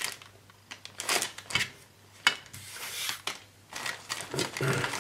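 Plastic model-kit sprues being handled and moved: a scattering of light clicks and knocks mixed with short rustles of plastic.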